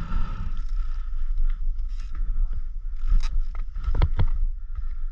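Mountain bike riding down a rough dirt and stone trail: a steady rumble of tyres and rattling bike. Several sharp clattering knocks come over bumps between about three and four seconds in.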